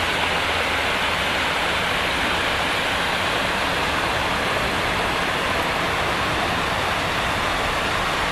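Steady, even rush of muddy runoff water streaming down a road over landslide mud and stones.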